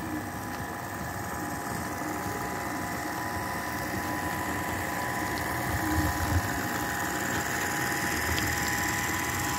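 HO scale model freight train running slowly: the locomotives' small electric motors hum with a steady whine, with a few faint clicks from the wheels on the track. It grows slowly louder as the locomotives pass close by.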